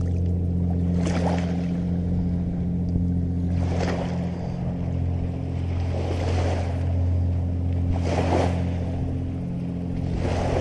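A boat engine droning steadily at an even pitch, with water washing and splashing in surges about every two and a half seconds.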